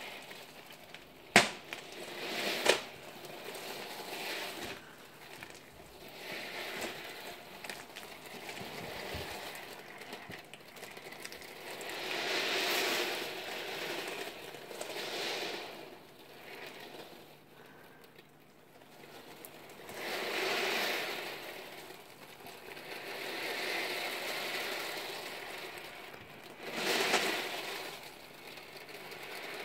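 Nearly 3000 steel ball bearings, 8 mm across, rolling and clattering against one another on a tray, rising and falling in waves as the mass of balls shifts back and forth. Two sharp knocks come near the start.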